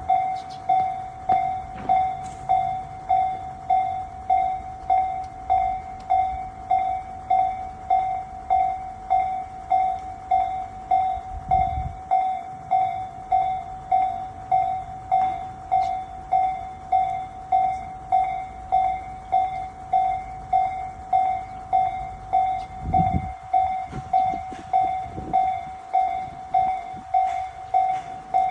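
Japanese railway level-crossing warning bell ringing, an electronic 'kan-kan' tone struck evenly about three times every two seconds. A low rumble passes under it about twelve seconds in and again around twenty-three seconds in.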